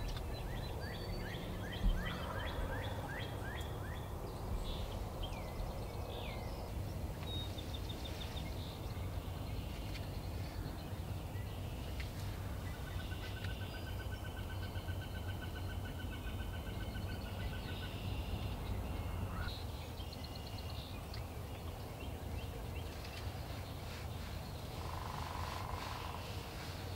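Wild birds calling in the early-morning woods: quick falling chirps early on, a long fast trill about halfway through, and a short call near the end, over a steady low rumble.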